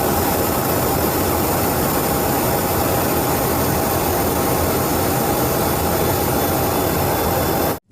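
Steady jet engine noise, even and unchanging, that cuts off abruptly near the end.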